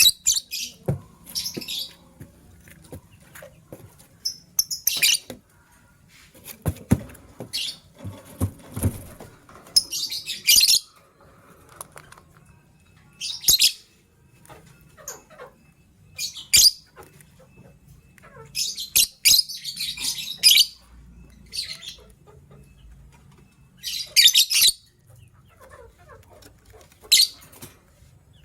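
Lovebirds chirping in short, shrill bursts every couple of seconds, with a few knocks and rustles about seven to nine seconds in.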